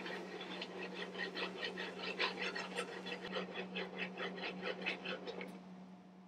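Butter sizzling and crackling as it foams and browns in a skillet with minced garlic and shallot, a dense run of tiny pops that thins out and drops away near the end. A steady low hum runs underneath.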